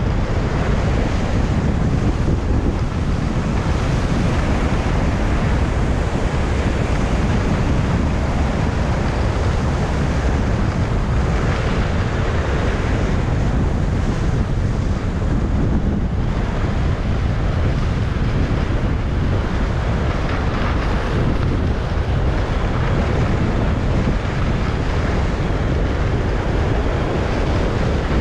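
Steady wind rush buffeting the microphone of a skier on the move, mixed with the hiss of skis gliding over groomed snow.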